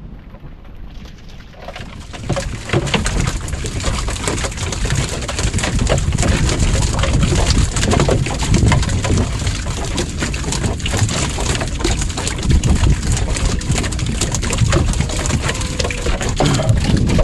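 Loud, rough water noise, rushing and crackling, that swells up about two seconds in and carries on.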